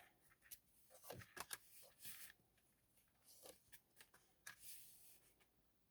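Faint, scattered rustles and light clicks of tarot cards being handled and laid out, close to near silence.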